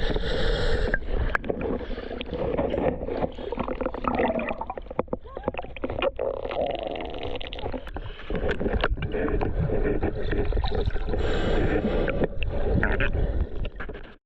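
River water rushing and gurgling around the microphone, with scattered knocks and bumps.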